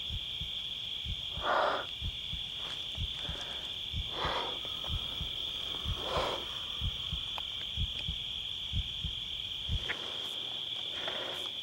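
Three slow, breathy exhalations, each about half a second long, over a steady high-pitched electronic whine and a run of soft, irregular low thumps.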